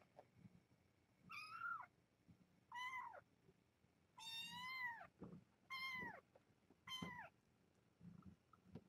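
A young kitten meowing five times, about every one and a half seconds. The calls are high-pitched and each drops in pitch at the end; the third is the longest.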